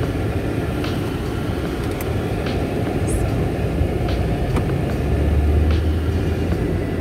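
Road and engine rumble inside a car's cabin as it is driven. The low rumble swells a little about five seconds in.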